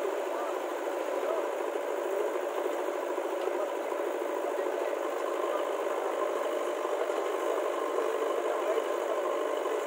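Diesel engine of heavy machinery running steadily at an even pace.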